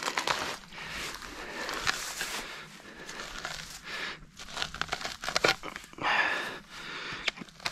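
A shovel digging into a muddy creek bank through matted dry grass: irregular scrapes and crunches of the blade, with dry grass stems rustling and tearing.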